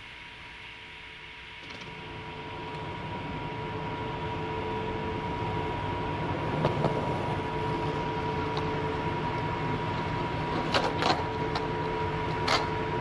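Skateboard wheels rolling on concrete, growing louder from about two seconds in as the board comes closer, with sharp board clacks near the end. A faint steady hum sits underneath.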